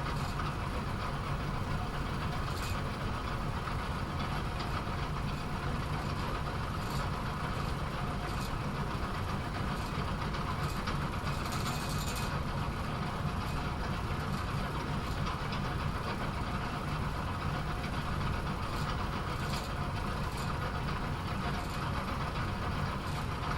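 Automatic bowling pinsetter machine running with a steady mechanical hum, broken by scattered clicks and clatters of its parts and pins, and a longer rattle about eleven seconds in.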